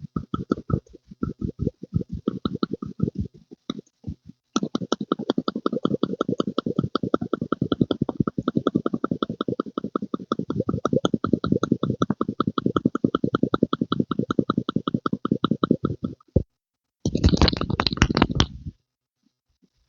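Rapid rhythmic pumping and squelching, about ten pulses a second, in stop-start spurts at first and then running unbroken for some twelve seconds, with one more short burst near the end.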